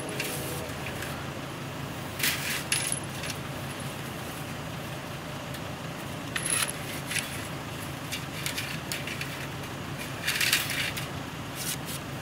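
Wire-mesh cage trap rattling and clinking in several short bursts as a caught coyote is worked into it with a catch pole. A steady low hum runs underneath.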